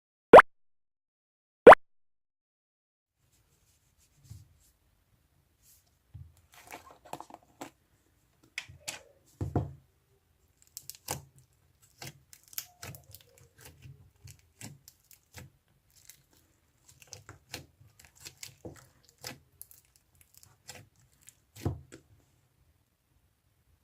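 Pink slime being pressed and squished by hand, giving scattered crackling air-bubble pops and squelches at an irregular pace. Two sharp, loud clicks come about half a second and about two seconds in.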